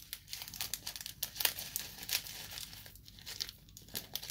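Small foil sachet of crispy noodle topping crinkling with many irregular crackles as it is squeezed and shaken empty over the cup.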